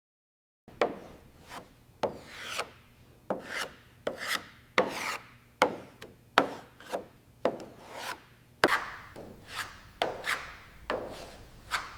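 Repeated rasping strokes, about two a second, each starting with a sharp scrape and trailing off, like a tool being worked back and forth over a surface by hand.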